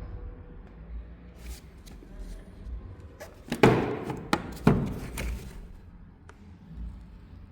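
A cluster of sharp knocks and thuds in a reverberant room, the two loudest about a second apart near the middle, with lighter clicks scattered before and after.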